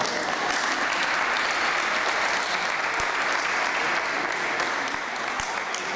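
Applause: a group of people clapping steadily throughout.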